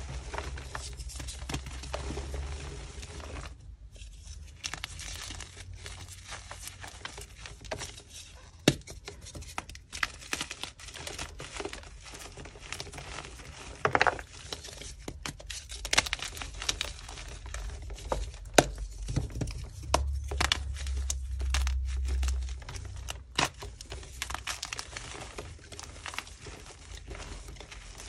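Yellow gym chalk blocks crushed and crumbled in the hands: a dense, dry crunching and crackling of breaking chalk and sifting powder, with sharper snaps here and there as pieces break.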